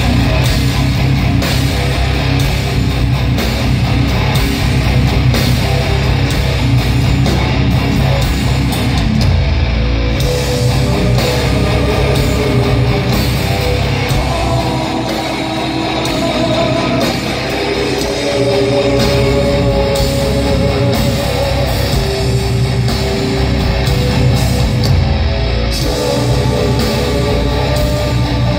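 Live heavy metal band playing loud through the PA: distorted electric guitars, bass and drum kit, recorded from within the crowd.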